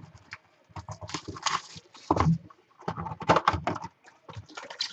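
Cardboard trading-card hobby box being handled on a wooden desk and opened: a run of irregular taps, knocks and cardboard scrapes.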